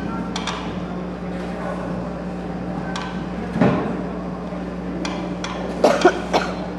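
Knocks and clatter of a heavy wooden table being handled: one knock about halfway through, then three sharper knocks close together near the end, over a steady low hum.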